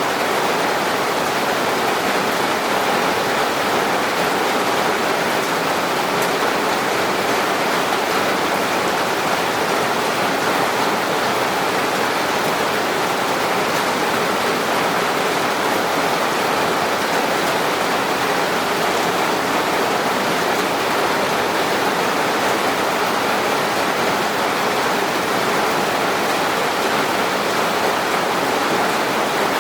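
Steady heavy rain falling, an even hiss without distinct drops or breaks.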